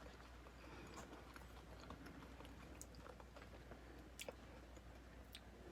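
Faint chewing of a marshmallow Peeps candy, with soft, scattered mouth clicks over quiet room tone; the sharpest click comes about four seconds in.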